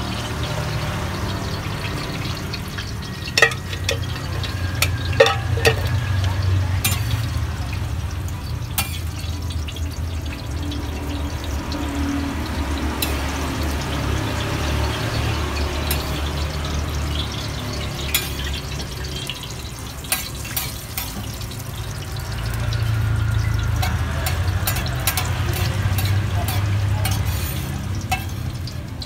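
Savory martabak frying in oil on a wide flat iron griddle: steady sizzling, with sharp metal clicks and scrapes from a steel cup and spatula working the dough, over a low steady rumble.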